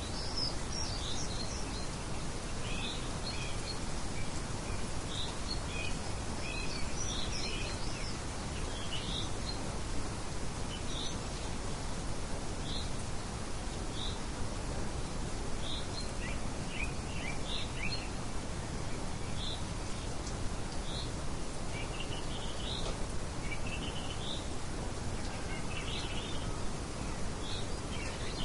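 Steady breeze hiss with small birds chirping on and off over it: short high chirps, some singly about a second apart, some in quick runs.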